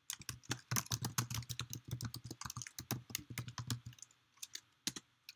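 Typing on a computer keyboard: a quick run of keystrokes for about four seconds, then a few scattered key presses near the end.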